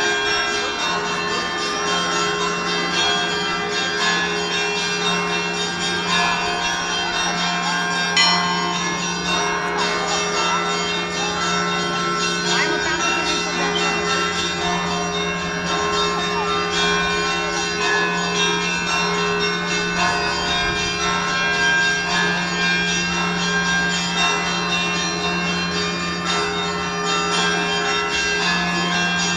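Russian Orthodox monastery bells ringing continuously: many bells of different pitches struck in quick succession over a steady low hum from the largest bell, with one louder stroke about eight seconds in.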